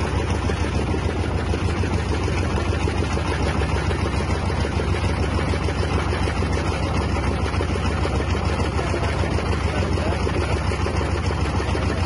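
The engine of a mobile grain thresher running steadily, with a fast, even chug and a deep hum.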